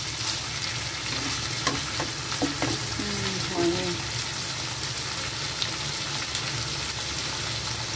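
Chicken frying in hot oil in a pan, a steady sizzle, with a few sharp clicks of a utensil against the pan as it is stirred.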